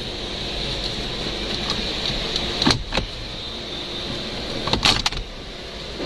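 Jeep's plastic dashboard trim bezel being pulled off, its push-in retaining clips snapping loose with sharp clicks about three seconds in and again a little before the end. A steady hum runs underneath.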